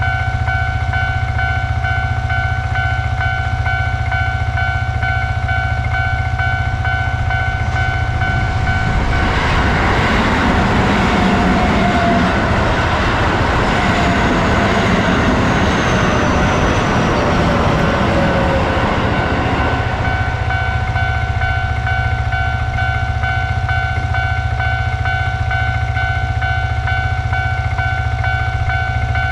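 Japanese railroad crossing's electronic warning bell sounding throughout as a fast, steady, repeating ding. An electric train passes from about nine seconds in to about twenty. Its running noise and a slowly falling whine cover the bell for that stretch.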